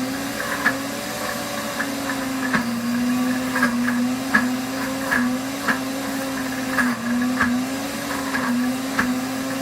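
Pampered Chef Deluxe Cooking Blender running steadily as it grinds peanuts into a thick, creamy peanut butter. Its motor hum wavers slightly in pitch as it loads, with scattered light clicks.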